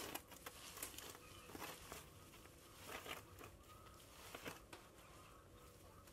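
Twig hand broom sweeping dry grass, twigs and leaves onto a dustpan: faint, quick brushy scrapes and crackles of dry debris, thinning out near the end.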